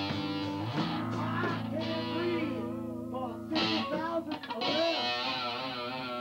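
A rock band playing live in rehearsal: electric guitar to the fore, with bass guitar, keyboard and drums.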